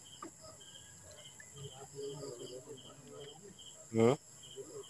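Crickets chirping steadily, about three short high chirps a second, under faint low voices; a brief loud voice sound about four seconds in.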